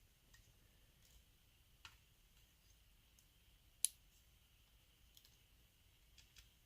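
Near silence with a few faint, scattered clicks of small metal lock pins and tools being handled, the sharpest about four seconds in.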